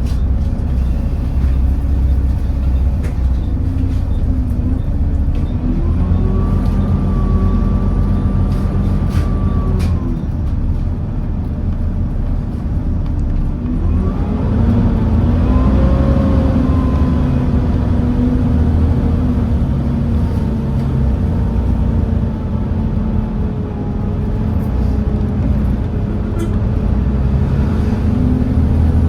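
Volvo B7TL double-decker bus heard from on board: its Volvo D7C diesel engine running under a steady rumble, with a whine that rises about six seconds in, drops away about four seconds later, and climbs again around the middle before levelling off.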